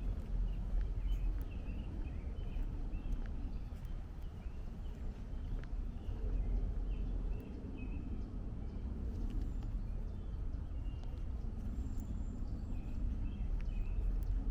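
Small songbirds chirp on and off over a steady low rumble of distant highway and city traffic, with occasional footsteps on the trail.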